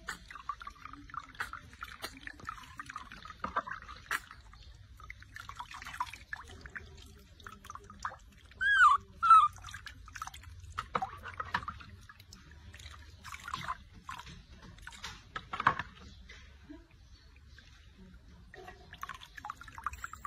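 Water splashing and dripping during a baby monkey's bath, with many small splashes throughout. About nine seconds in come two short, loud, high squealing calls, bending in pitch, most likely from the monkey.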